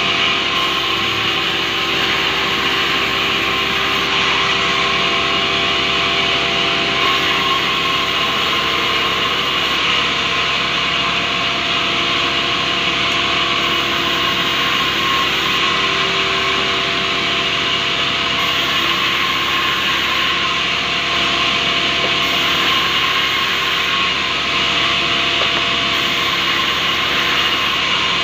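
Sawmill band saw running steadily and ripping lengthwise through a rubber-wood log. The blade's continuous hiss through the wood sits over the steady hum of the machine.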